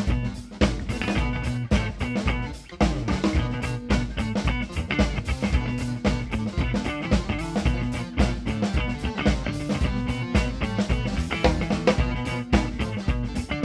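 Live rock trio playing an instrumental passage: electric guitars over a drum kit keeping a steady beat.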